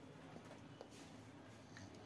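Near silence: faint room tone with a low hum and a few very soft ticks.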